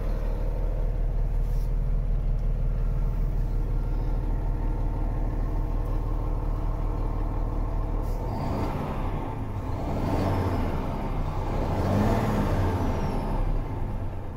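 Renault D 380 truck's diesel engine heard from inside the cab, idling steadily in neutral, then revved about eight seconds in, rising and falling twice.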